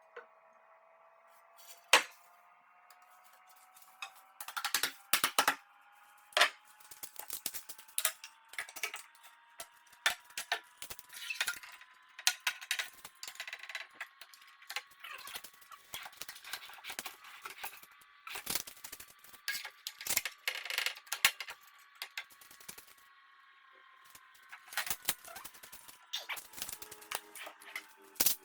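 Irregular knocks, clicks and clatter of boards and clamps being handled, with one sharp knock about two seconds in, over a faint steady hum.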